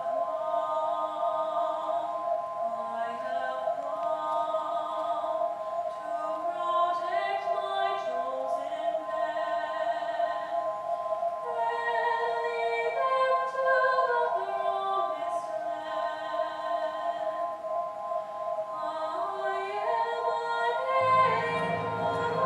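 High school concert band playing: one note is held steadily throughout while melodic lines move step by step above and below it. Near the end, low instruments come in and the sound grows fuller and louder.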